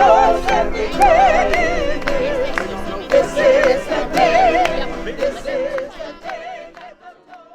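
Music with a singing voice holding long, wavering notes with heavy vibrato over accompaniment, fading out over the last couple of seconds.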